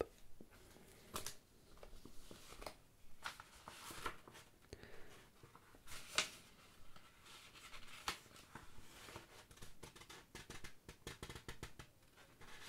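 Sheets of printed paper handled and leafed through close to the microphone: irregular rustling with crisp crackles and snaps, busiest in the last few seconds.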